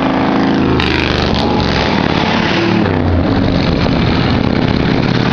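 Motorcycle engine rumbling as it rides slowly past, followed by passing car engines. A short rush of noise comes about a second in.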